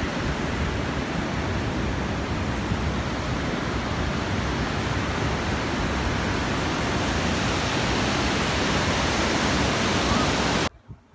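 Waterfall and river rapids rushing: a steady, even noise of falling white water, cutting off suddenly near the end.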